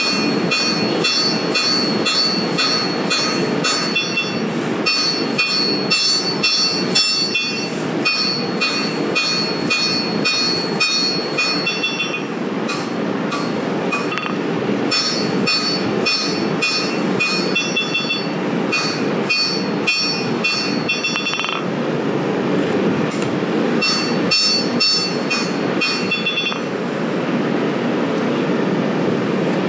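Hand hammer striking a red-hot steel knife blade on an anvil in runs of quick ringing blows, about two to three a second, with short pauses between runs, drawing out the edge bevels. A gas forge roars steadily underneath.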